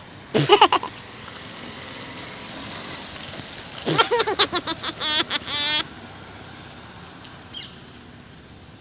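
A woman's short vocal outburst, then about two seconds of rapid puffs and wavering voiced sputters through pursed lips as she spits out cotton fluff caught in her mouth, over a steady background hum.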